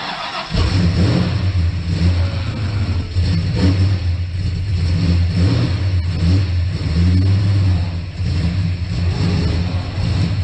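Ford XC Falcon's modified 351 V8 running, a loud, deep and uneven engine sound that pulses irregularly.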